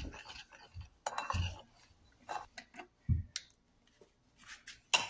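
Kitchen utensils clinking and knocking against a bowl and containers: several separate short taps and clinks while dry seasonings are mixed with oil.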